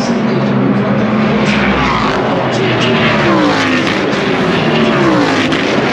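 Race cars passing on the track one after another, engines loud. The engine pitch falls as each car goes by.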